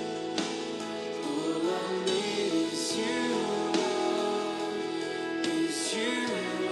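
A song playing: a singing voice over sustained instrumental chords.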